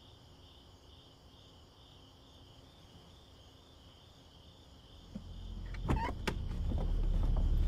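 Crickets chirping at night in a steady pulsing rhythm, faint. About six seconds in, a few sharp clicks like a car door handle and latch, as a low rumble swells up and stays loud.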